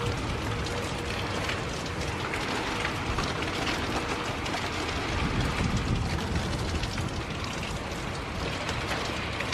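Heavy rain pouring down in a gusty thunderstorm, a dense hiss full of fine drop ticks, with wind buffeting the microphone as a low rumble that swells and eases.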